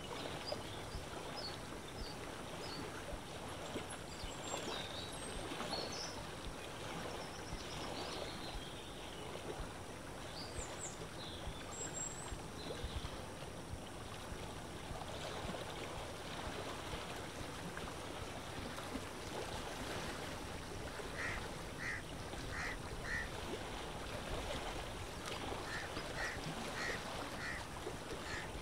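Steady lake water lapping and wind, with birds calling over it: thin high chirps in the first half, and in the second half two runs of four short, evenly spaced calls.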